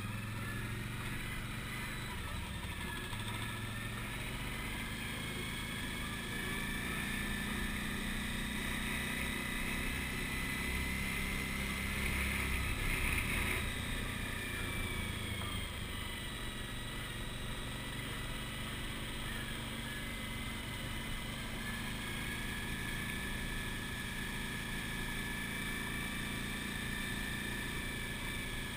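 Suzuki V-Strom motorcycle's V-twin engine running at road speed, with steady road and wind noise. The engine note climbs and grows louder toward the middle, then eases back to a steady cruise.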